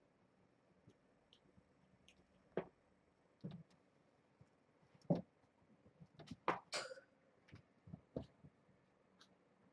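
Scattered soft thumps, taps and scuffs from kittens at play, irregular and a second or so apart. The loudest come about five seconds in and around six and a half seconds, the latter with a brief rustle.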